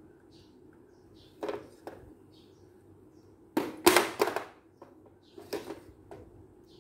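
Hard plastic toy truck knocking and clattering on a tiled floor as it is handled and tipped over, with a few separate knocks and the loudest burst of clatter about four seconds in.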